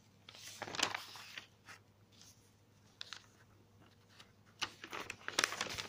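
Paper rustling and scraping as ruled notebook pages are turned and handled, in short irregular bursts, loudest near the end.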